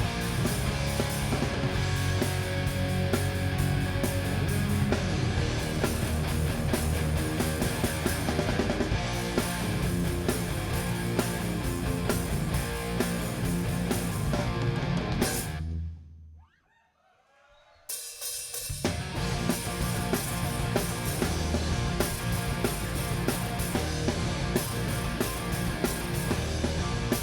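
Live rock band playing an instrumental passage with drum kit, bass and electric guitars. The music cuts off sharply about sixteen seconds in, there are about two seconds of near silence, and the band starts up again with full drums.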